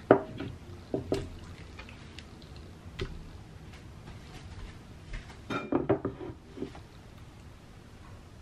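Kitchen handling sounds from raw meat cutlets being laid over vegetables in a baking dish: soft wet squishes and scattered knocks against the dish. The loudest knock comes right at the start, with a cluster of them about six seconds in.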